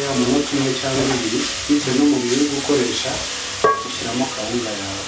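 Chopped onion, sweet pepper and carrots sizzling in a little oil in an aluminium pot while being stirred with a wooden spoon, with one sharp knock against the pot a little over halfway through.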